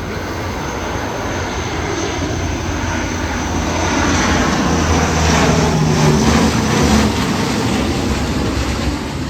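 Airplane engines passing low overhead: the engine noise swells to its loudest about six seconds in, the pitch drops as the aircraft goes by, then it begins to fade.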